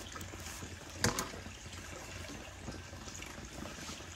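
Paddle hairbrush swishing through long dry hair as it is brushed out, a soft rushing noise, with one short louder sound about a second in.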